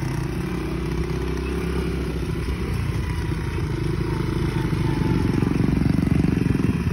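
Small quad bike (ATV) engines running while riding on a dirt road. The engine note is steady, growing a little louder near the end.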